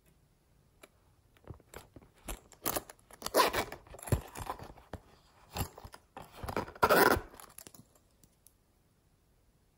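Small hard-plastic toy containers being handled and opened by hand: a run of clicks, scrapes and crackles, loudest in two clusters about a third and about two-thirds of the way in, then quiet near the end.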